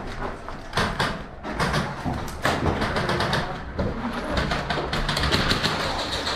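Airsoft gunfire: runs of sharp, rapid clicks in quick succession, mixed with footsteps crunching on rubble and gear rustling.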